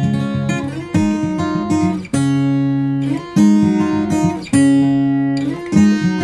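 Background music: acoustic guitar strumming chords, a new chord struck about every second.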